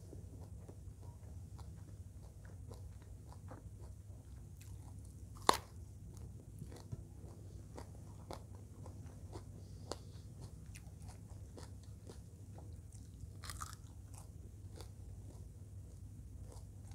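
A person chewing a mouthful of fried eel in chili sauce (belut balado) with rice, close to the microphone: small crunches and wet mouth clicks over a low steady hum, with one sharp loud click about five and a half seconds in and a crackly crunch about thirteen and a half seconds in.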